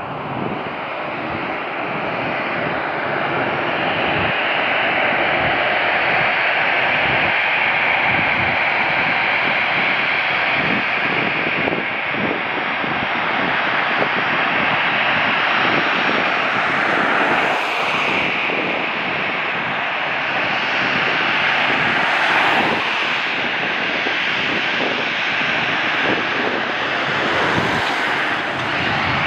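Jet airliner engines, a steady rushing noise that grows louder over the first few seconds and then holds.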